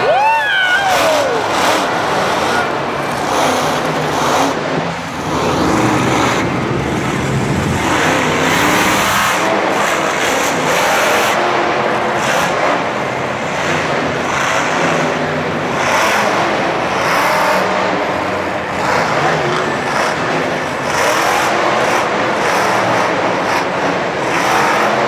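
Barbarian monster truck's supercharged V8 engine revving hard and loud through its freestyle run. The pitch swings up and down, with a clear rising and falling sweep about a second in.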